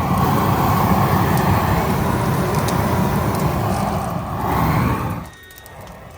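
Propane torch burner running with a loud, steady rushing of flame, which swells briefly and then cuts off suddenly about five seconds in as the gas is shut off.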